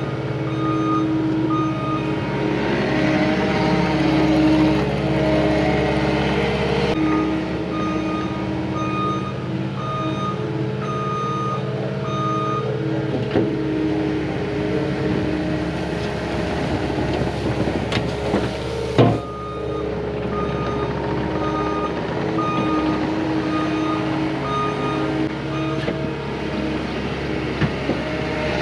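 Cat 259D compact track loader's diesel engine running steadily while it works, its reverse alarm beeping repeatedly for much of the time. A single sharp clank stands out about two-thirds of the way through.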